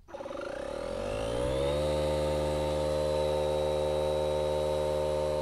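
Air compressor running to inflate car tyres: its motor spins up over the first couple of seconds, then runs at a steady pitch, and stops abruptly near the end.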